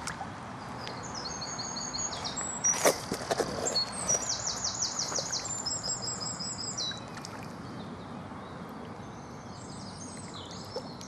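Songbird singing: short repeated high chirps and a fast trill over a steady outdoor background hiss, with one sharp click about three seconds in.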